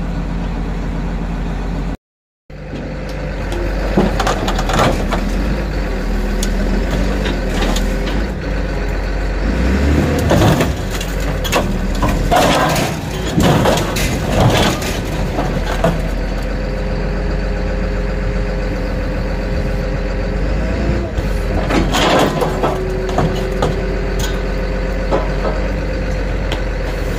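A heavy scrapyard machine's diesel engine running steadily while its steel grapple tears metal parts and panels out of a bus body, with crunching, cracking and clanging metal. The crunching comes in several rounds, about a sixth of the way in, around the middle and again near the end.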